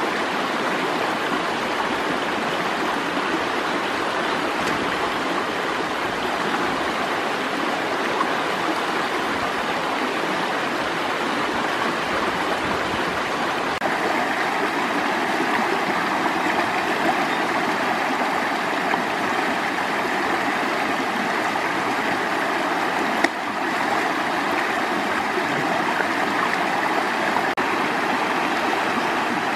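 Shallow rocky stream rushing over stones, a steady wash of water noise whose tone shifts a little about halfway through. A single sharp click sounds about two-thirds of the way in.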